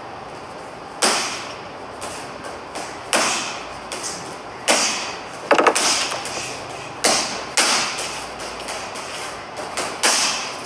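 Gloved punches landing on a hanging heavy bag: sharp smacks at an irregular pace, some in quick pairs or runs, with lighter hits between, each ringing briefly in the large room.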